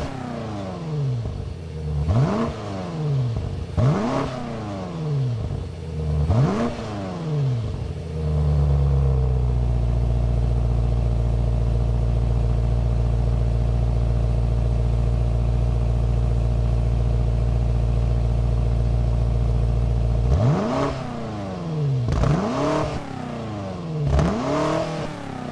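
BMW M8 Competition's twin-turbocharged 4.4-litre V8 being revved at a standstill through its quad-tip exhaust. It gives short throttle blips about every two seconds, each rising and falling in pitch. About eight seconds in the revs are held steady for some twelve seconds, then the blips resume.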